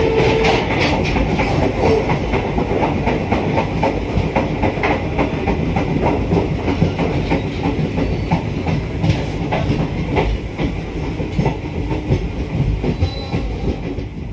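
Express train coach running on the rails, heard from inside near the vestibule: a steady rumble of wheels on track with continual clickety-clack and rattling of the carriage.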